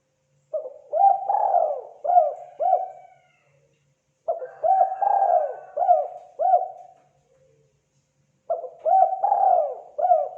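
Spotted dove (terkukur) giving its cooing call: three phrases of about five low coos each, roughly four seconds apart.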